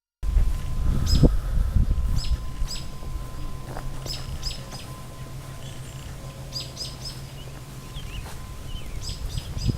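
Small birds chirping in repeated short, sharp calls that come in little clusters, over a low rumble that is strongest in the first couple of seconds.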